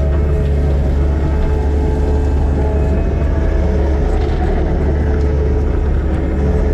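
Skid steer's diesel engine running steadily at working speed, with a strong, constant low drone.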